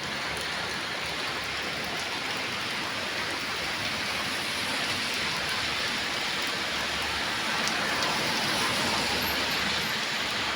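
Steady rain falling and hissing on surfaces, with a few faint drops ticking.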